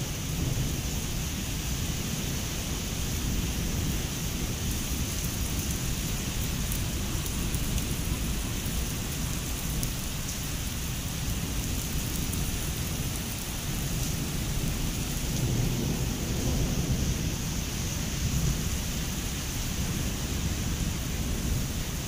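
Heavy pre-monsoon rain falling steadily on leaves, grass and wet paving, a dense even hiss with a deep low rumble underneath.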